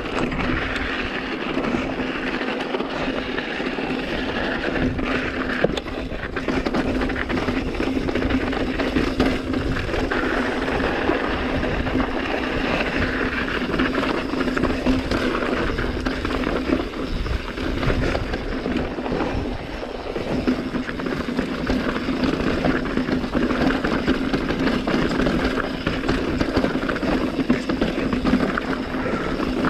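Mountain bike rolling over a loose, rocky dirt trail: a steady crunch of tyres on gravel and a rattle of the bike over stones, with a steady low hum underneath.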